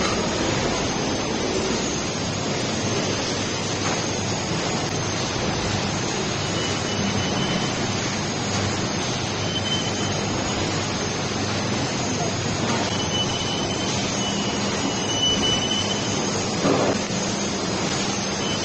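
Mini noodle-making machine running steadily, its motor giving a constant hum under a broad mechanical noise, with one brief knock near the end.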